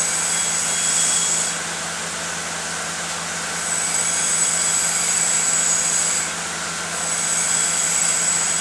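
Steady machine-like background noise with a low hum. A high thin whine rises and falls away three times, each for about two seconds.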